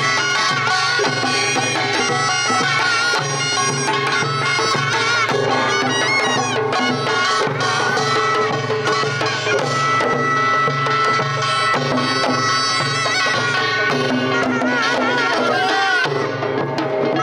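Korean taepyeongso (double-reed shawm) playing a wavering, bending melody over continuous pungmul percussion: buk barrel drums and a kkwaenggwari small brass gong beaten in a steady rhythm.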